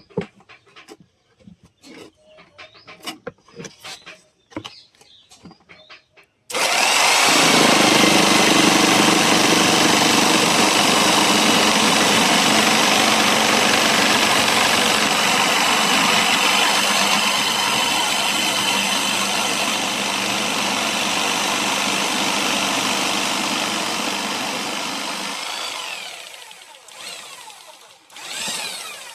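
A few knocks and clicks, then an electric jigsaw switches on suddenly about six seconds in and runs steadily for nearly twenty seconds, sawing through wood. It then winds down with falling pitch, gives a short burst near the end, and stops.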